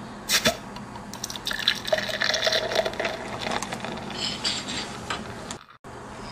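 A beer bottle opened with a sharp click, then beer pouring and gurgling into a glass for about four seconds, cutting off abruptly near the end.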